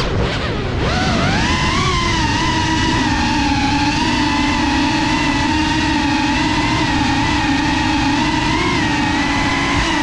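Whine of a GEPRC Cinelog 35 cinewhoop's electric motors and propellers, heard from its onboard GoPro. The pitch drops sharply right at the start as the throttle comes off, climbs back over the next second, then holds a steady high whine with small wavers.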